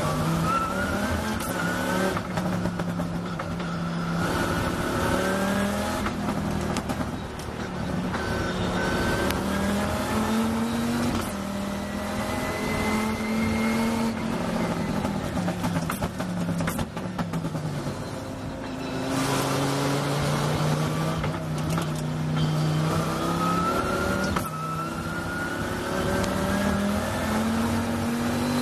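Chrysler Oreca Viper GT3's V10 engine heard onboard at full throttle, its pitch climbing through the gears with a drop at each upshift. About two-thirds of the way through it falls through downshifts as the car brakes, then climbs again under acceleration.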